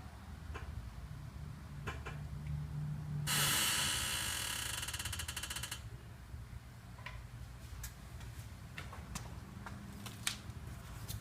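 Honda S2000's worn front lower control-arm ball joint creaking once for about two and a half seconds as the suspension is loaded, a dense rasping creak, amid scattered light ticks. The creak is typical of a worn ball joint.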